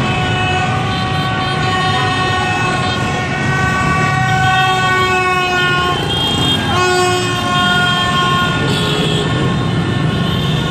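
Horns sounding in long held blasts over the steady running of many motorbike engines: one blast lasting about six seconds, then a second of about three seconds.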